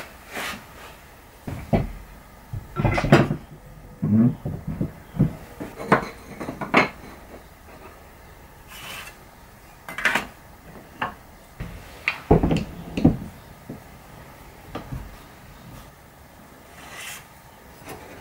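Irregular knocks and clatters of wood, metal and plastic on a wooden workbench as frame pieces, a metal speed square, a plastic set square and bar clamps are picked up, shifted and set down.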